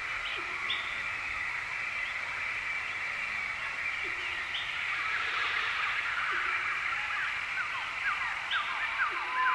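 Nature ambience: birds chirping over a steady high hum, with a few faint low hoots. A run of quick, repeated short chirps starts near the end.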